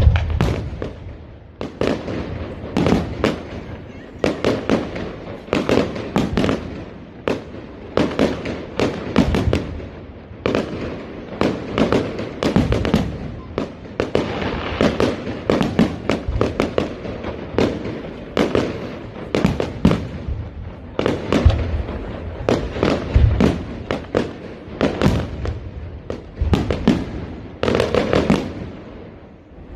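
Fireworks display going off in a dense barrage of bangs and crackling bursts, several each second.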